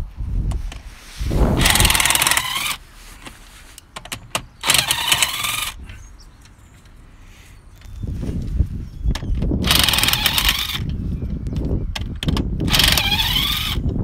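Cordless impact wrench hammering in four bursts of about a second each as it undoes the wheel bolts on a VW Polo's front wheel, its whine rising as each burst starts.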